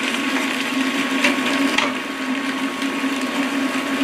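Wooden spatula stirring and scraping vegetables cooking down in a stainless steel stockpot, with a couple of sharper scrapes between one and two seconds in. Under it runs a steady hum, typical of a portable induction cooktop's cooling fan.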